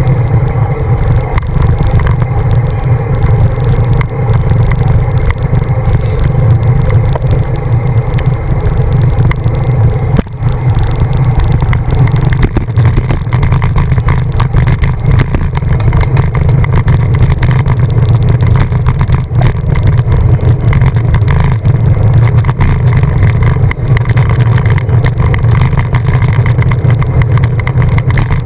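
Steady, loud wind rumble on the microphone of a camera mounted on a moving road bike during a group ride, with a brief dip about ten seconds in.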